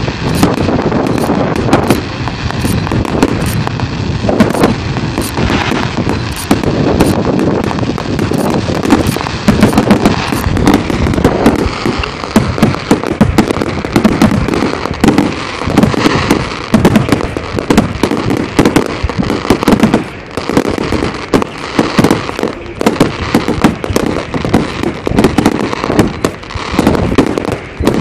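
Aerial fireworks display: a dense, unbroken barrage of shell bursts and crackle, many bangs a second overlapping one another.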